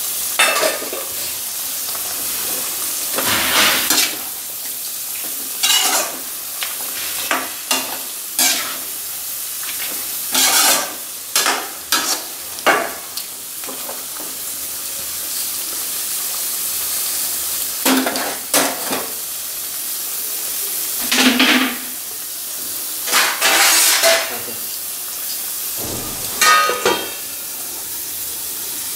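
Chicken and tomato curry sizzling in a kadai while a metal slotted spatula stirs and scrapes it in irregular strokes over a steady frying hiss. It ends with a steel plate set over the pan as a lid.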